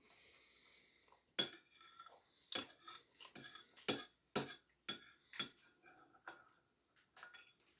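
Metal cutlery clinking against a dish: a run of about six sharp, briefly ringing clinks, with softer scrapes between them, as cake is cut and scooped.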